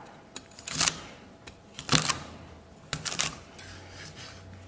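Cleaver chopping green beans on a wooden chopping board: three rounds of chopping about a second apart, each of two or three quick sharp strikes.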